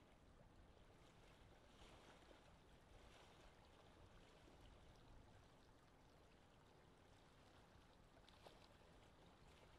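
Near silence: faint steady hiss, with no distinct sound.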